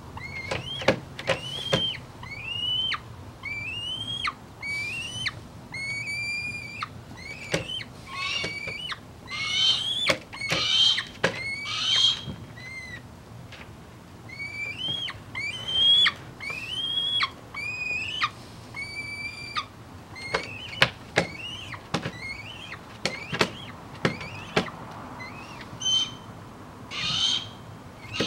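Young tiercel northern goshawk (albidus × atricapillus white goshawk) in down, calling over and over: short whining calls that rise and then hold, about one a second with a brief pause just past the middle. These are an eyass's food-begging calls. Sharp taps and scrapes of beak and talons on the leather lure and wooden tabletop, and short rustles of feathers, come in between.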